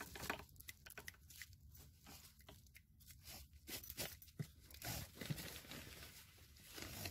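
Small wood campfire crackling: faint, irregular snaps and pops from burning wood and embers.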